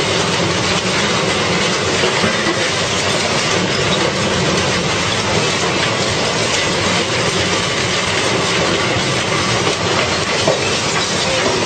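Heavy car-destroying machine, such as a scrap shredder, working through a car: a loud, steady, dense clatter and grinding of metal without a break.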